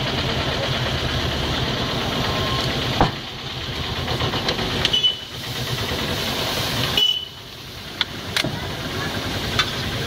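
Food sizzling on a large flat griddle (tawa) over a steady low rumble, with a metal spatula clanking and scraping against the pan several times as the mixture is stirred and flipped.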